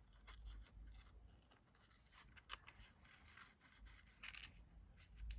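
Near silence with faint rustling and small clicks of paper and ribbon being handled, including one sharper click about two and a half seconds in.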